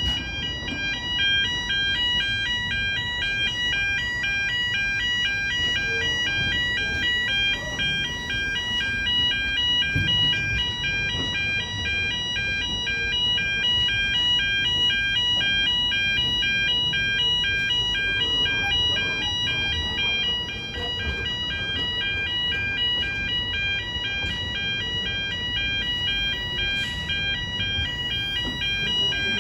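Level crossing audible warning alarm sounding continuously as a fast, warbling electronic tone. Beneath it run the low rumble and wheel knocks of a freight train of bulk cement tank wagons rolling over the crossing.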